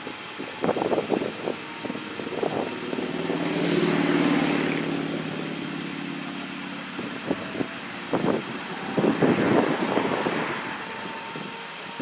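A road vehicle passing, its engine swelling and fading about three to six seconds in, with scattered rumbling thumps on the microphone.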